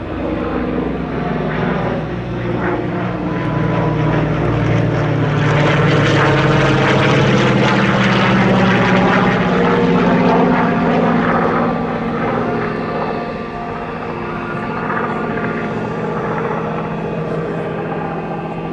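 Goodyear FG-1D Corsair's 2,000-horsepower Pratt & Whitney R-2800 radial engine running at power as the fighter flies past, growing loudest near the middle and fading toward the end.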